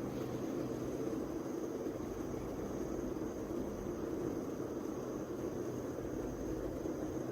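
Steady low hum with a hiss, unchanging and without distinct events, like room noise from a running appliance.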